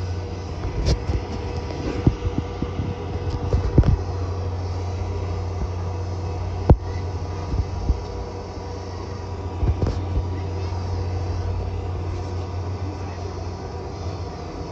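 Canadian Pacific Holiday Train's boxcars rolling past: a steady low rumble with a few sharp knocks and clanks, the loudest about two-thirds of the way through.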